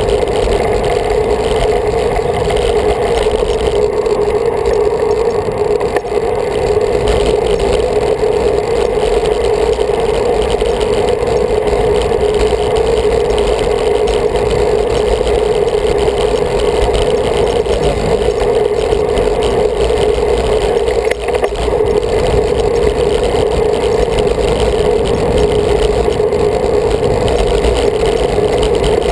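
Steady wind rush and tyre-on-road noise on the microphone of a camera mounted on a moving road bike.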